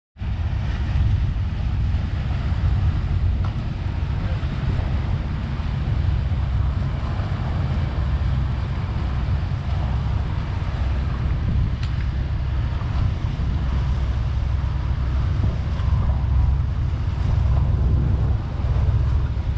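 Wind buffeting the action camera's microphone in a steady low rumble, over the wash of open water; it starts abruptly just after the beginning.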